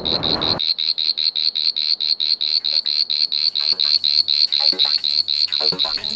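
A high-pitched animal call pulsing evenly and rapidly, about eight pulses a second, without a break.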